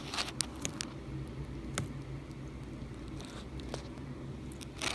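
A lizard biting and chewing a superworm: a few sharp, scattered crunching clicks at irregular intervals over a faint steady low hum.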